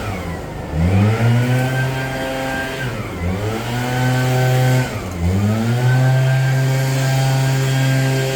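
Petrol leaf blower's small engine running at high throttle, dropping in pitch three times as the throttle is eased off and climbing quickly back to full speed each time.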